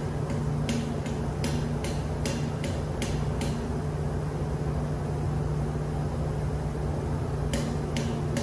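Steady low hum of engine-room machinery running. Over it comes a run of light, evenly spaced ticks, about two and a half a second, in the first half and again near the end.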